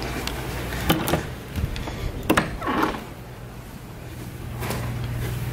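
A metal lever-handled door is unlatched and pushed open, with sharp latch clicks about one second and two and a half seconds in and a brief swish as the door moves. A low steady hum runs underneath.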